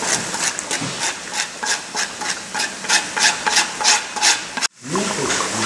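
Rhythmic rasping strokes, about three a second, that cut off suddenly near the end.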